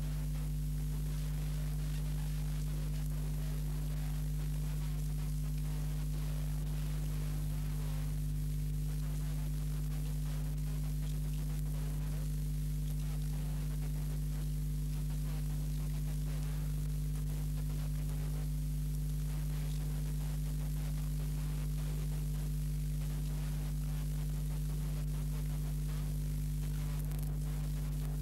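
Steady electrical mains hum, a low buzz with a higher overtone above it, over constant hiss.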